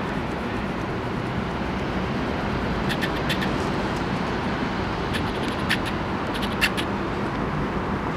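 Steady low outdoor background rumble, with a few short light clicks around the middle.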